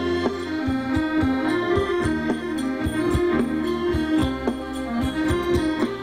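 Thai ramwong dance music: a melody line stepping up and down over a steady drum beat of about two strikes a second.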